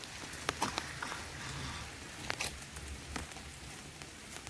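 Light rain falling, a steady soft patter with a few sharp taps scattered through it.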